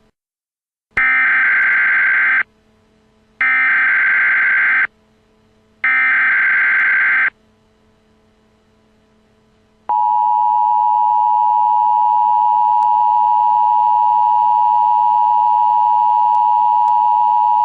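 Emergency Alert System header: three identical bursts of SAME digital data tones, each about a second and a half long, then a steady two-tone attention signal lasting about eight seconds, announcing a weather alert.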